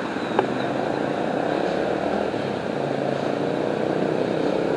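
Steady rush of river water pouring out under the lowered sluice gates of a barrage.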